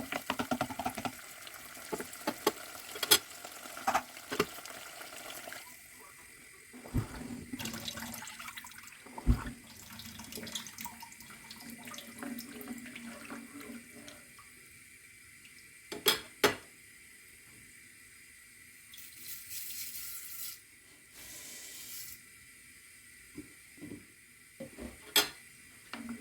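Kitchen sink sounds: a water tap running in short spurts, with clinks and knocks of dishes and utensils being handled, including a couple of sharp knocks.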